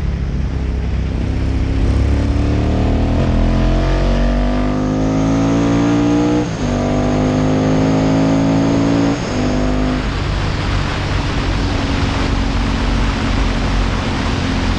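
Ducati-powered classic racing sidecar's engine at full throttle, heard onboard: it climbs in pitch, changes up a gear about six and a half seconds in, climbs again, and changes up once more about nine seconds in. From about ten seconds in it holds a steady high pitch under a heavy rush of wind.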